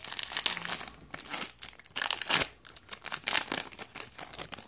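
Foil wrapper of a Topps Platinum trading card pack crinkling and tearing as it is ripped open by hand, in irregular bursts of crackle with short pauses, dying down near the end.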